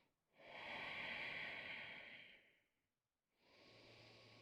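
A person breathing deeply and slowly into a close microphone: a long, louder breath, then a softer one starting about three and a half seconds in.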